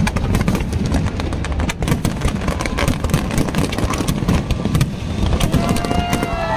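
Aerial fireworks exploding in quick succession, a steady run of sharp pops and crackles over a low rumble. Crowd voices rise over them in the last second or so.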